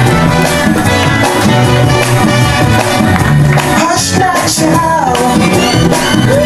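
Loud music with a steady bass beat and a singing voice.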